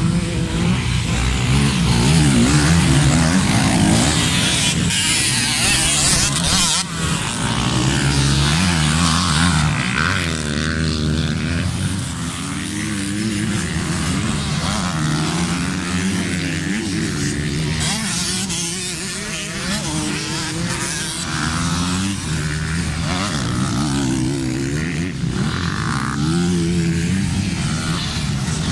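Several motocross bikes' engines revving hard, one after another, their pitch rising and falling as they race up to a jump and take it.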